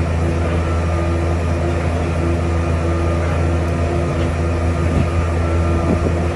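Heavy diesel engine of a CFA piling rig running steadily under load, a deep even hum with a couple of faint knocks near the end.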